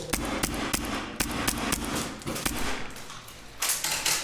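Airsoft guns firing in a skirmish: a rapid, irregular string of sharp shots and cracks, denser about three and a half seconds in.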